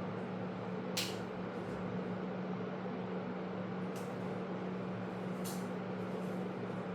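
A steady low hum over background hiss, with three short faint ticks about a second in, at four seconds and at five and a half seconds.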